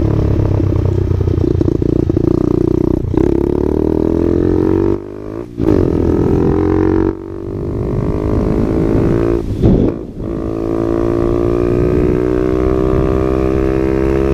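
50cc pit bike's single-cylinder engine running under throttle while being ridden, its pitch climbing and falling. The throttle is cut briefly about five, seven and ten seconds in, then it picks up again.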